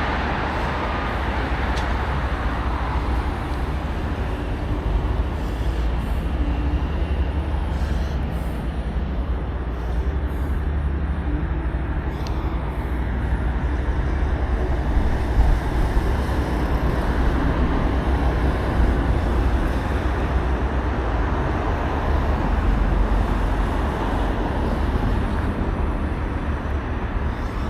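Steady outdoor rumble of road traffic, with wind rumble on the microphone underneath and no distinct single event.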